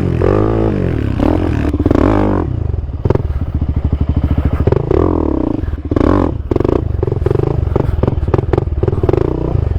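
Quad (ATV) engine revving hard, its pitch rising and falling repeatedly as the rider works the throttle and clutch over the sand, with a few knocks and clatter from the machine over the bumps.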